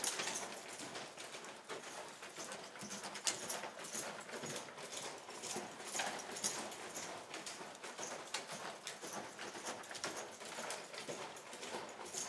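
A horse's hooves thudding and scuffing on sand footing as it moves around a round pen. The sound is loudest as the horse passes close by near the start.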